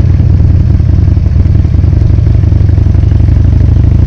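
2009 Buell Lightning XB12Scg's air-cooled V-twin with a Hawk aftermarket exhaust running steadily, with a rapid low firing pulse, way too loud for the camera's microphone.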